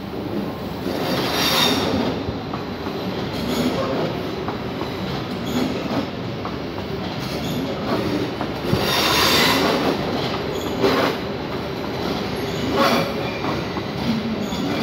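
Red-and-white SBB electric passenger train rolling slowly past on a nearby station track, its wheels rumbling steadily. Several bursts of wheel screeching come through, the loudest about a second and a half in and again around nine seconds in.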